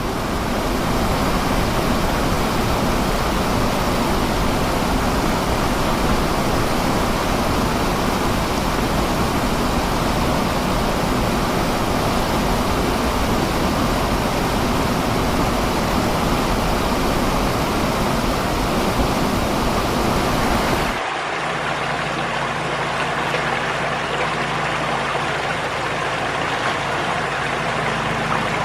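Floodwater rushing in a steady, loud, dense roar of water noise. About 21 seconds in it cuts abruptly to a different recording: a steadier, lower hum with several held low tones under a softer rush.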